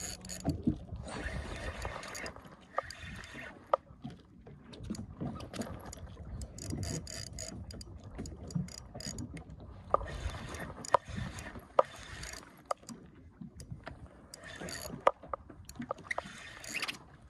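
A spinning reel being cranked against a fish on a bent jigging rod: its gears run in spells, with scattered sharp clicks and several bursts of hiss.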